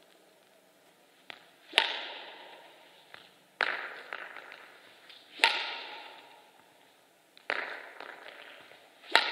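Badminton racket striking a shuttlecock in repeated backhand strokes: five sharp cracks about two seconds apart, each echoing through the large sports hall.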